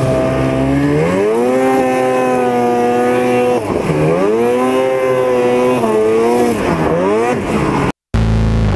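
Snowmobile engine running at high revs under throttle, its pitch climbing about a second in, then dipping and climbing again several times as the throttle is eased off and reopened. It cuts off suddenly near the end.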